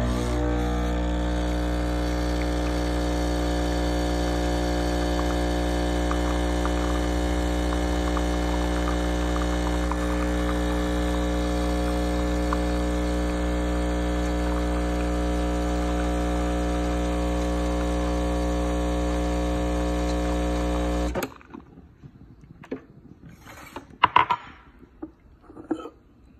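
Breville espresso machine's vibratory pump humming steadily while it pulls an espresso shot. The hum stops suddenly after about 21 seconds, and a few light knocks follow.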